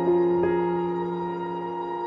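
Slow, soft piano music: a chord is struck at the start and another note about half a second later, and both are left to ring and slowly fade.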